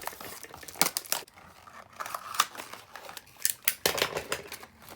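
Toy blind-box packaging being handled and opened by hand: a string of irregular sharp clicks and snaps with some crinkling.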